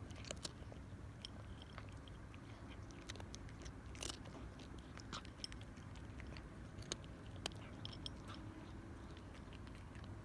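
Cat crunching dry kibble: irregular sharp crunches and clicks of its teeth breaking the pieces, several a second, over a faint low hum.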